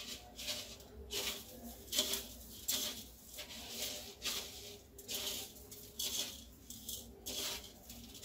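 Crushed cornflakes crunching and rustling in a steel plate as a potato roll is pressed and rolled through them by hand, in short scratchy bursts about twice a second.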